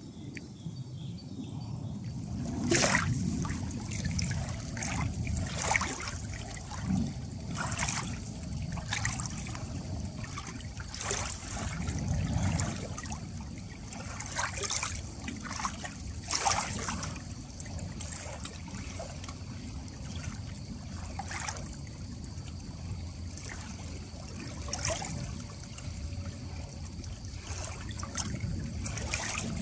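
Shallow river water lapping and trickling at the shore, with irregular short splashes every second or few.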